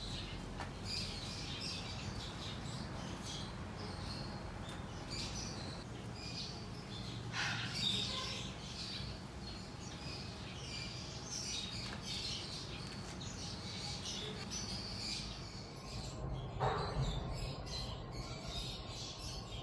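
Small birds chirping: many short, high calls scattered throughout over a low steady hum, thinning out near the end.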